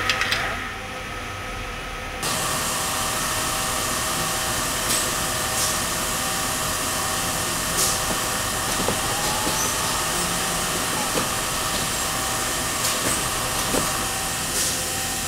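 A 1970s DSM-A automatic turning machine runs steadily as it cuts a titanium bolt, with a hiss of cutting oil flooding the work and a few light ticks. The noise steps up suddenly about two seconds in.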